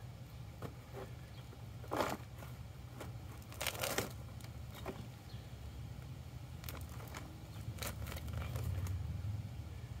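Gloved hands digging and scraping through loose potting soil in a black plastic pot, crumbly rustling scrapes with a couple of louder ones about two and four seconds in, over a low steady hum.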